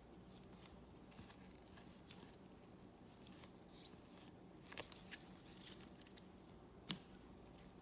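Near silence with a few faint clicks and small handling noises from trading cards being handled, the sharpest about five and seven seconds in.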